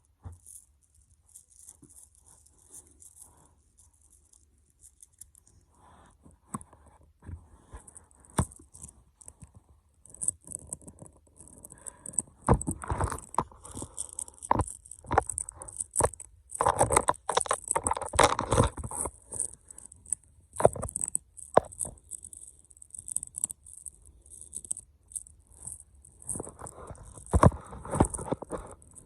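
Small magnetic fidget balls being handled, clicking and rattling as they snap together, with dense bursts of clicks midway and again near the end.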